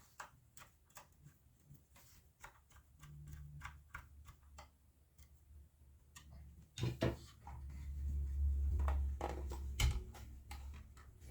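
Phillips screwdriver turning a short screw into a Janome sewing machine's plastic housing: a string of irregular small clicks. A louder low rumble of the machine being handled comes from about seven seconds in, for a few seconds.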